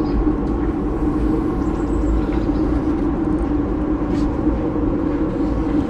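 A steady engine-like hum runs without a break, a low drone held at one pitch over a deep rumble.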